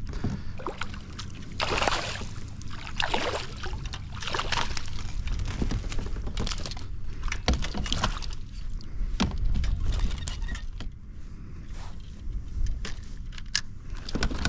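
A hooked smallmouth bass being netted beside a kayak: water splashing and sloshing as it thrashes, with irregular knocks and rattles of the net and gear against the hull.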